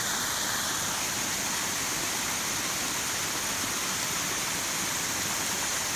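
Steady rush of a mountain spring's water cascading down over rocks.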